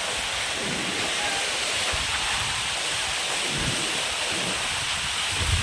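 Heavy rain falling steadily, with wind gusting against the microphone in low rumbles.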